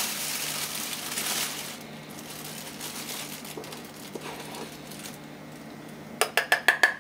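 Plastic flour bag rustling as a measuring cup is scooped through the rye flour, then near the end a fast run of sharp taps with a ringing note: the measuring cup rapped against the metal bread-machine pan to knock the flour out.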